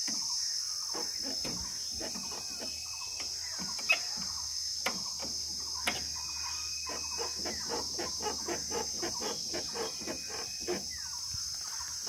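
Steady, high-pitched buzz of insects, with chickens clucking over it, including a quick rhythmic run of clucks in the second half. A couple of sharp clicks come near the middle.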